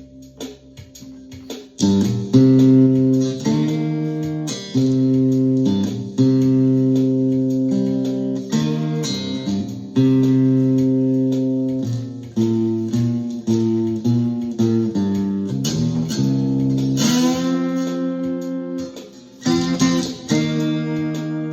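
Ovation Koa thinline guitar in open C tuning, played with a slide: chords struck about two seconds in and left to ring, then changing every second or two, with a few gliding notes. A sound check of the guitar's repaired neck.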